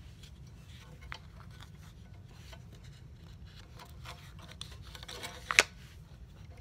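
Handling noises as a scroll saw blade, released from its upper clamp, is threaded through a drilled starter hole in a taped stack of wood blanks on the saw's metal table: faint rubbing and a few light clicks, then one sharp click near the end, the loudest sound. The saw is not running.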